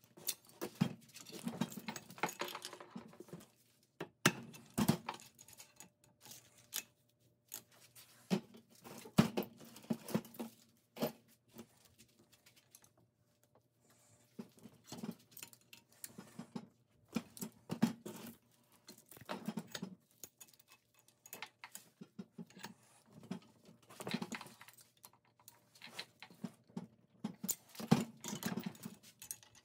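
Irregular metal clinks, clicks and knocks from hand-working steel hardware at a bench vise: locking pliers on an eye bolt, then steel chain links jangling against the vise.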